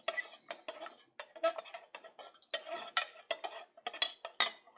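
Kitchenware being handled: a rapid, irregular run of clinks and knocks of a utensil and containers against dishware, each with a brief ring.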